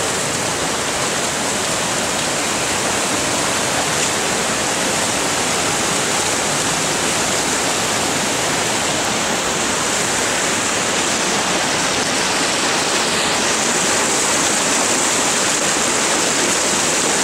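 Creek water pouring over a low dam and rushing over rocks in whitewater rapids: a steady, loud rush with no breaks.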